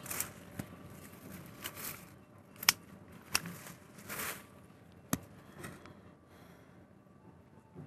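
Scattered small clicks and short rustles of handling, irregular and soft, the sharpest click about two and a half seconds in, dying away after about six seconds.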